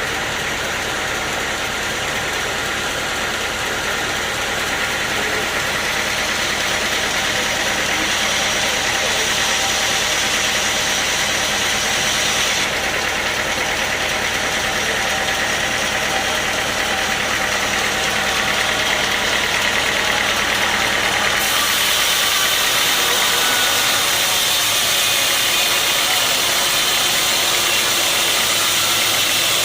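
Sawmill machinery running steadily: an engine-driven saw with a constant whine and hiss. The sound shifts abruptly about 13 and 21 seconds in.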